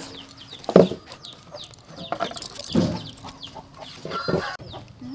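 Chickens clucking, with a few louder clucks about a second in, near three seconds and again past four seconds, and faint high chirps between them.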